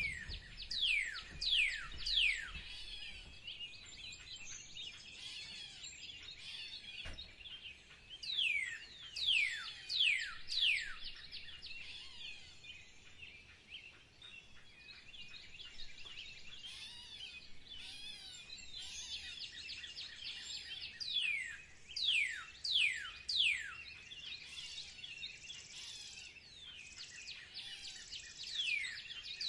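Morning bird chorus: many birds chirping and twittering together. One bird repeatedly sings short runs of four or five loud, sharply falling whistled notes.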